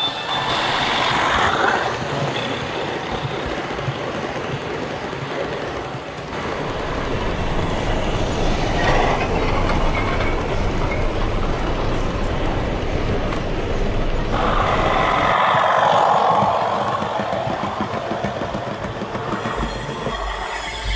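Model Class 37 diesel locomotive's Hornby HM7000 sound decoder playing diesel engine sound through a small onboard speaker, mixed with the model train's wheels clicking and rolling over the track. The sound swells and fades as the train passes, changing abruptly at cuts between shots.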